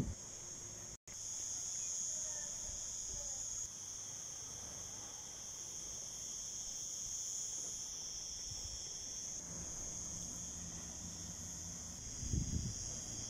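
A steady, high-pitched chorus of insects chirring continuously. The sound drops out for a split second about a second in, and a few low rumbling bumps come near the end.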